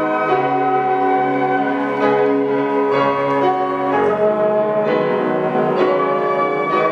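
Flute ensemble playing a slow instrumental arrangement of a Korean art song: sustained, overlapping chords that change about once a second.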